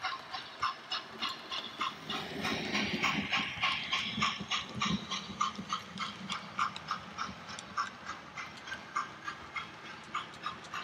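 OO gauge model steam locomotive running with a regular chuffing beat, about three beats a second, over a steady rumble of wheels on track that grows louder from about two to five seconds in.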